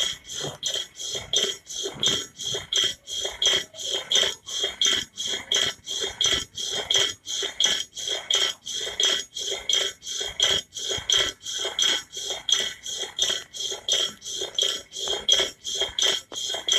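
Metal swing spring squeaking in a steady rhythm as it swings, about two to three squeaks a second, each with a high, ringing tone.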